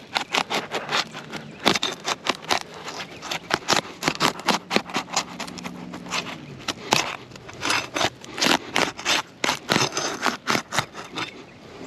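Steel flat bar prying under sealed asphalt shingles, breaking the adhesive seal strip loose: a rapid, irregular run of scrapes, clicks and crackles.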